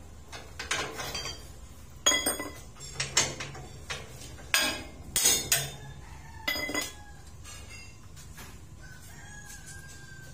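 Steel rebar and a hand bending bar clanking against a steel bending jig as stirrups are bent: a string of about six sharp metallic knocks that ring briefly, from about 2 to 7 seconds in.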